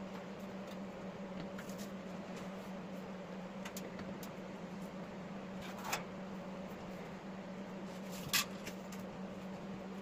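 A stiff paper template being handled against a rusted steel mower deck: soft rustling, with two short crinkles about six seconds in and about eight and a half seconds in. Under it runs a steady low electrical hum.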